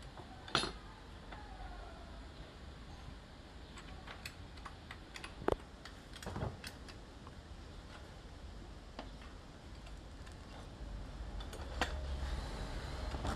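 Scattered light clicks and taps of a screwdriver and small metal and plastic parts on a car side mirror's folding mechanism, with a sharper knock about half a second in and another past the middle.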